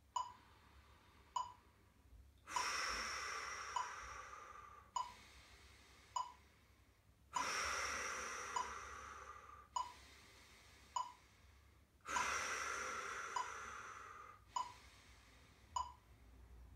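Digital metronome ticking at 50 beats per minute, about one click every 1.2 seconds. Three long, active out-breaths fall in time with it, each starting on a click and fading away over about two beats, with quiet in-breaths between them.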